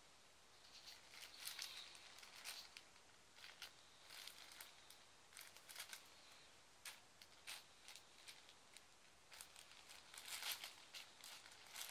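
Thin plastic carrier bag crinkling faintly in short, irregular bursts as a kitten twists and paws on it, busiest near the end.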